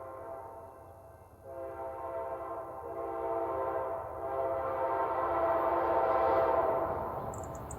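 Multi-chime diesel locomotive air horn sounding long blasts for a grade crossing as the train approaches: a blast ends about a second in, a new one starts after a short gap, and another follows with only a brief break near the middle. The horn grows louder as the locomotive draws near.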